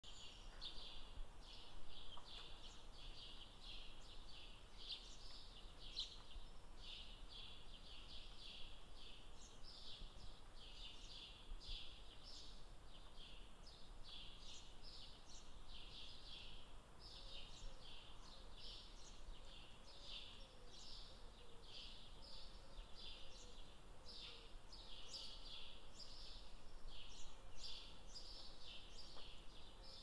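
Faint outdoor ambience: a continuous chorus of short, high chirps repeated a few times a second, with no loud call standing out.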